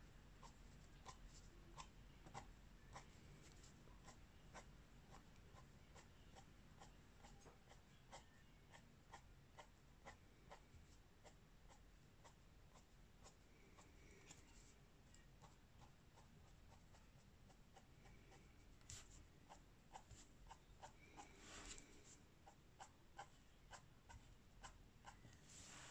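Faint scratching and tapping of a white pen's tip on the paper of a colouring book: short, quick strokes, several a second, with a slightly louder, longer scratch about halfway through and again near the end.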